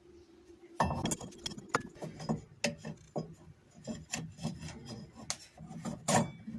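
Hands working a rubber drive belt around the pulleys of a top-loading washing machine: irregular rubbing and scraping with small clicks and knocks against the machine's parts. The handling starts about a second in, and there is a louder knock near the end.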